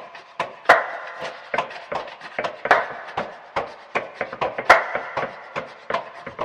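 A rhythmic percussion loop built from everyday object sounds: quick dry taps and scratchy rubs at an even pulse, with three heavier, ringing hits two seconds apart.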